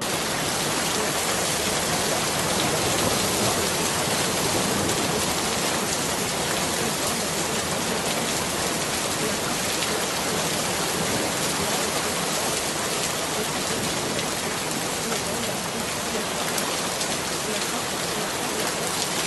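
Steady rainfall: an even, unbroken hiss of rain.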